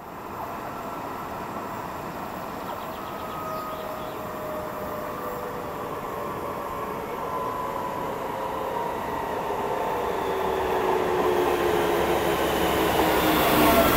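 Alstom Coradia Nordic (Västtrafik X61) electric multiple unit approaching out of a tunnel, growing steadily louder. Several whining tones slowly fall in pitch over a rail rumble.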